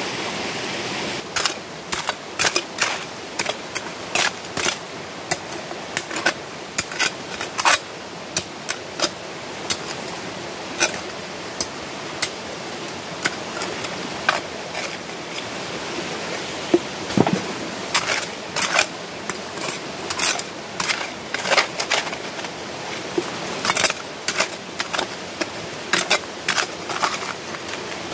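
Metal hoe blade scraping and clinking against stones and concrete as wet mud and rocks are dug out, in sharp irregular strikes a few times a second, over the steady rush of a stream.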